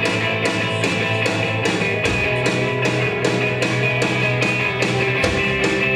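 Punk rock band playing live: distorted electric guitar over bass and drums, with a steady fast beat on the cymbals.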